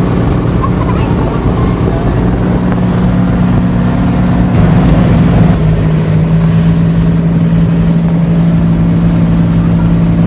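Motorboat engine running steadily under way, its note dropping slightly about five and a half seconds in.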